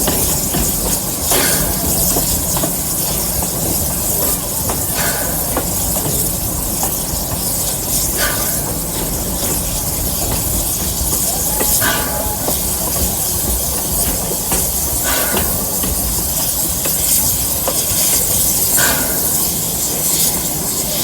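Steam-hauled park railroad train running, heard from aboard: a steady hiss and rumble of the moving train, with a short clack about every three and a half seconds.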